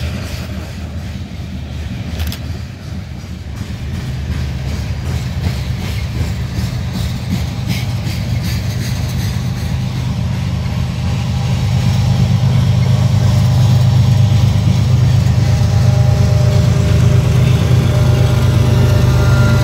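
A freight train passing close by: hopper cars roll past with wheel clicks in the first few seconds. Then a working distributed-power diesel locomotive approaches, and its low, steady engine drone grows louder until it dominates.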